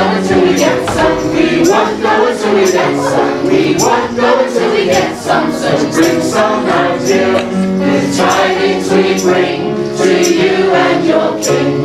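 Many voices singing together over instrumental music, with long held notes.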